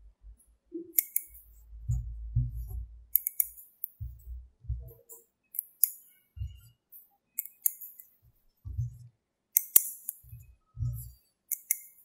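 Small metal magnetic balls clicking and clinking sharply as they snap onto a sphere built of magnetic balls, a click every second or two, with soft low thuds in between.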